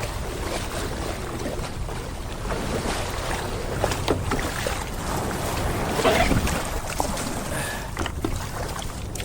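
Water lapping and sloshing around a kayak on calm sea, with a low rumble of wind on the microphone and scattered small knocks.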